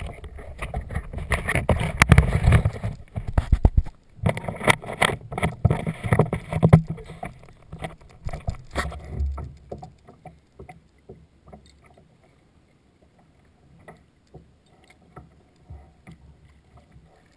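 Plastic kayak and a handheld action camera knocking, bumping and rubbing as the camera is moved and set up, a dense run of thumps and rattles that stops about nine seconds in. After that there are only faint, scattered ticks and small splashes of water against the kayak hull.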